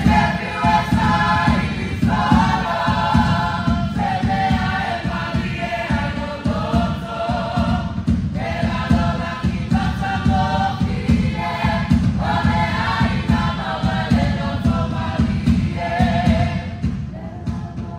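Samoan group song: many voices singing together in phrases of a few seconds over a fast, low drum beat. The singing drops away near the end.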